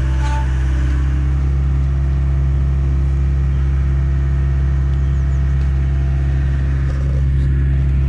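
Diesel engine of a piece of heavy construction equipment running steadily at constant speed, an even low drone.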